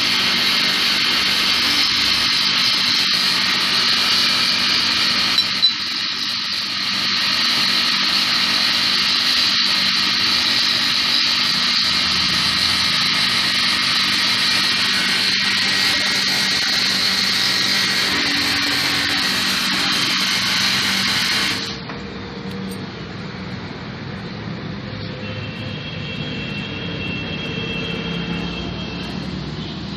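A loud, steady mechanical whirring hiss cuts off suddenly about 22 seconds in, leaving a quieter steady hum with a faint high whine near the end.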